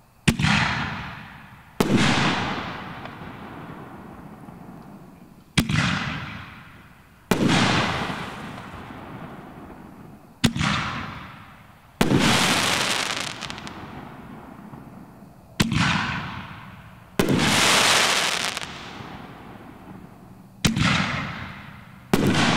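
Consumer canister shells fired one after another from a mortar tube: about five shots, each a sharp launch report followed about a second and a half later by a loud break that trails off. A couple of the breaks, such as the crackling palm, are followed by a long crackle.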